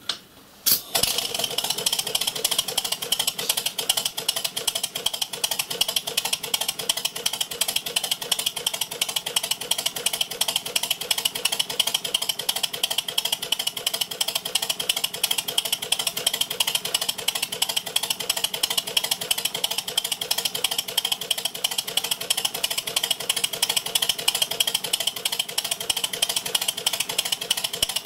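Miniature 0-6-2 Metre Maid steam locomotive running on compressed air, starting up about a second in, then a rapid, steady beat of air exhaust and motion clatter as it drives its axle pump, which is pumping water under test.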